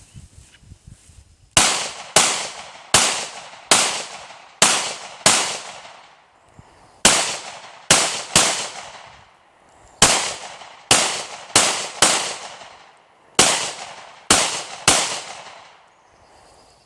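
About eighteen shots from a semi-automatic pistol, fired in quick strings of two to six with short pauses between them. Each shot is a sharp crack with a trailing echo.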